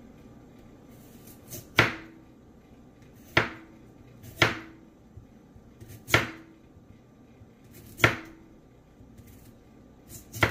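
Chef's knife slicing through a carrot into rounds and striking the cutting board: six sharp chops at an uneven pace, about one every one and a half to two seconds.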